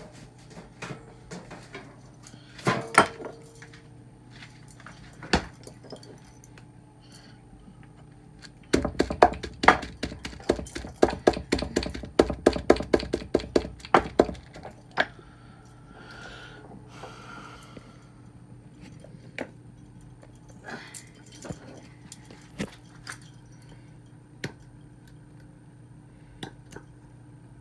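Kitchen utensils and dishes knocking and clinking, with a run of rapid, even knocks lasting about six seconds in the middle.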